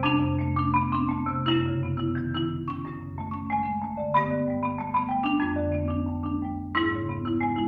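Solo concert marimba played with four mallets: a continuous stream of quick struck notes in repeating patterns over low bass bars that ring on underneath.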